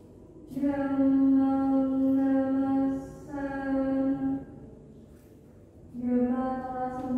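A woman's voice chanting Buddhist paritta in Pali on one steady, held pitch, in long drawn-out phrases: two phrases, a pause, then another beginning about six seconds in.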